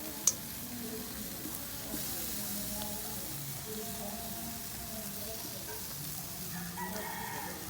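Chicken and pork barbecue skewers, basted with oil, sizzling steadily on a grill. There is one sharp click about a third of a second in.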